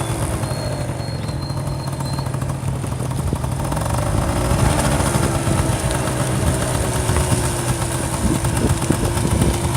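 A Honda scooter's engine running at a steady pace while being ridden, with a fluctuating rumble of road and wind noise.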